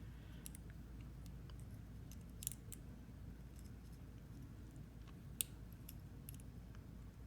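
Faint, sharp metal clicks and ticks from the small parts of a drafting divider being handled while its head screw is fitted, the two clearest about two and a half and five and a half seconds in.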